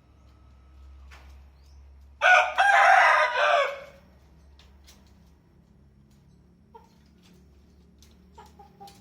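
A rooster crows once, a loud crow lasting just under two seconds, starting about two seconds in. A few faint short calls follow near the end.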